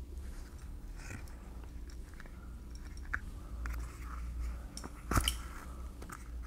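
Leather being hand-stitched with the two-needle method: thread drawn through punched holes and the leather flexing, giving small irregular scratchy, crunchy sounds, with a sharper scrape about five seconds in. A low steady hum lies underneath.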